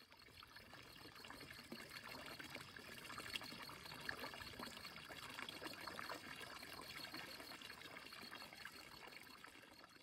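Quiet, steady trickle and splash of a thin stream of water pouring from a fountain spout into a stone trough full of water, tapering off near the end.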